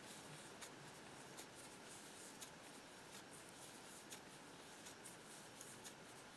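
Near silence with faint, irregular little ticks and rubbing as a crochet hook works cotton yarn into a foundation chain.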